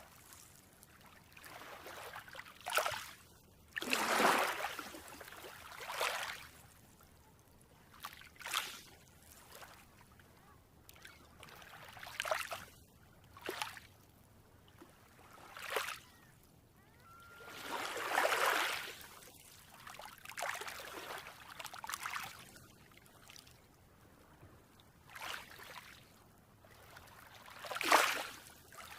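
Small waves washing onto a beach, an irregular swell of water surging in and drawing back every few seconds, with a few sharper splashes in between.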